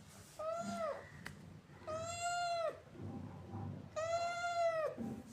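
Domestic cat meowing three times, each meow held steady and then dropping in pitch at its end, roughly a second and a half apart.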